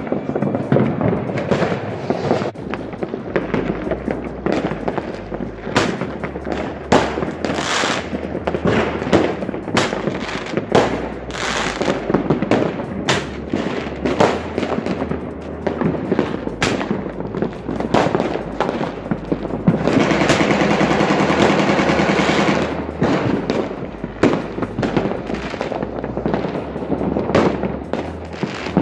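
Fireworks going off: a continuing run of sharp bangs and crackles, with a dense, unbroken barrage lasting about three seconds around twenty seconds in.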